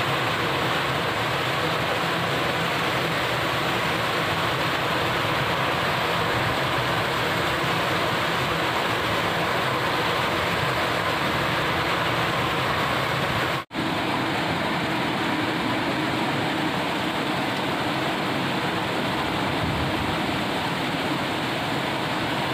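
Heavy rain falling steadily on waterlogged rice paddies, an even hiss, with a momentary dropout about fourteen seconds in.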